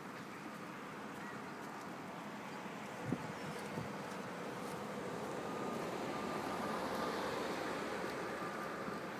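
Jet ski engine droning with a thin high whine, growing louder a little past halfway and easing off near the end. Two short knocks sound about three seconds in.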